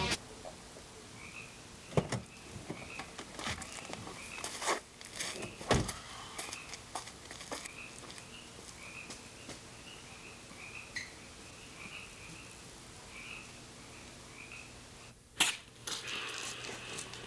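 Frogs calling at night: short croaks repeated roughly once or twice a second at a steady pitch. A few sharp knocks break in, the loudest near the end.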